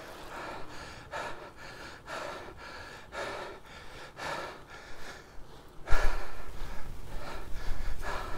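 A man breathing hard from pedalling a bike uphill, about one loud breath a second. About six seconds in, a louder low rumble of wind on the microphone sets in under the breathing.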